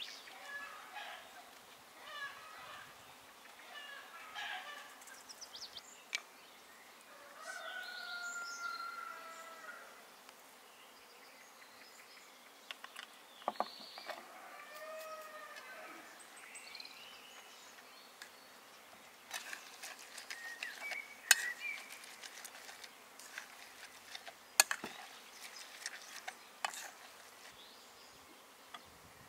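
Outdoor rural ambience: birds calling with short gliding calls, then a run of sharp clicks and knocks in the second half.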